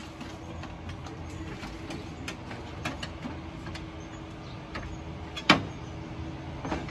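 Scattered clicks and knocks of hands working loose a car's radiator and its rubber hoses in an open engine bay, with one louder metallic knock about five and a half seconds in, over a steady faint hum.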